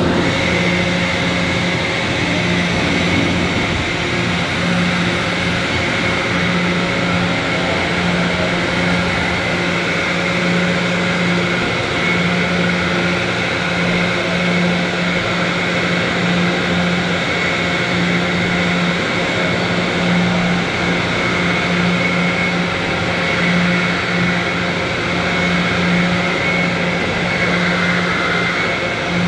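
Makino MAG3.EX five-axis horizontal machining centre running: a steady mechanical hum, pulsing slightly, with a faint high whine over it.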